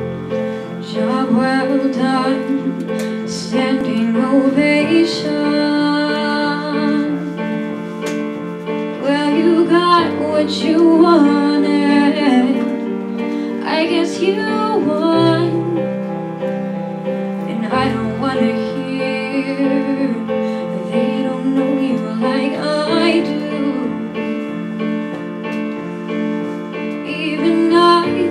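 A girl singing a song into a microphone over an instrumental accompaniment of sustained chords.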